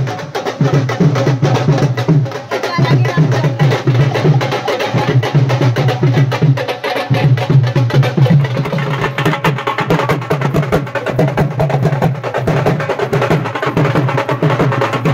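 Dhol drum played live in a fast, steady beat for dancing.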